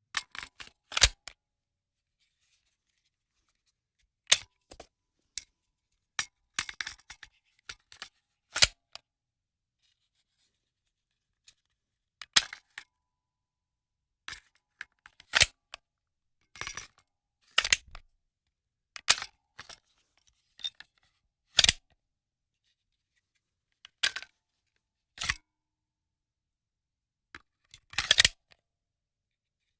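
Handgun handling sound effects: short, sharp mechanical clicks and clacks in small clusters a few seconds apart, with silence between them.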